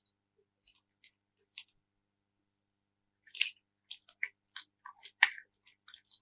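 Slime crackling and popping in small, sharp clicks. They come sparsely at first, then in a quick, louder cluster about halfway through.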